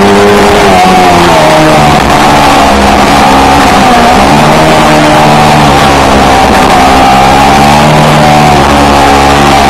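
Yamaha R3 parallel-twin engine through an aftermarket exhaust, running loud at fairly steady revs, with brief dips and rises in pitch, most noticeably about four seconds in.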